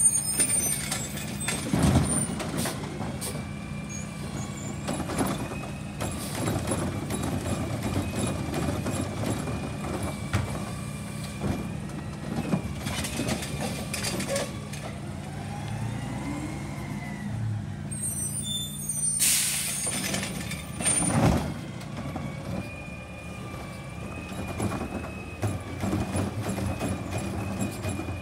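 Automated side-loading garbage truck at work: its diesel engine runs steadily under the whine of the hydraulic arm lifting and emptying a recycling cart. Sharp bangs about two seconds in and again around twenty-one seconds, and a burst of air hiss just before the second bang.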